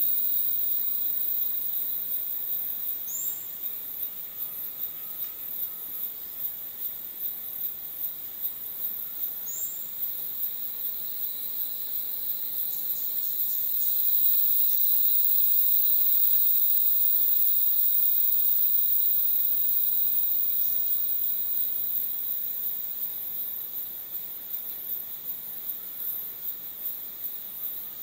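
Rainforest insect chorus: a shrill high chirring and a steady high drone, pulsing about twice a second and swelling louder for several seconds in the middle. A few short high chirps and a faint thin whistle sound over it.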